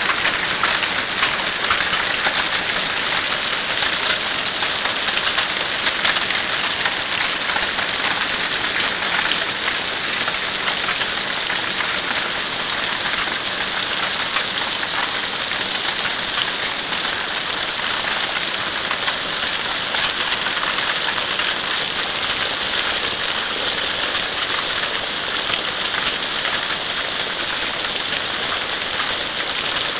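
Hailstorm: small hailstones falling steadily and striking grass, a flagstone path and foliage, a dense, continuous hiss of countless tiny impacts.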